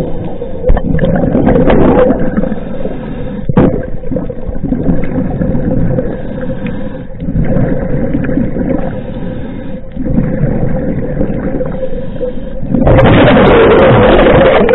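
A diver breathing through a scuba regulator underwater: slow swells of rumbling noise come every few seconds, with a long, loud gush of exhaled bubbles near the end. A faint steady hum runs underneath, and there is one sharp knock about three and a half seconds in.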